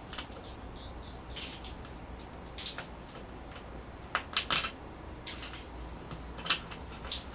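Hands scraping and tapping on a metal wall plate held against the wall, with a few louder scratches about a second and a half in, past the four-second mark, and near the end, over a run of faint, rapid high clicks.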